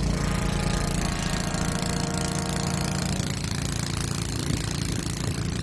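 Snow blower's small gas engine running steadily.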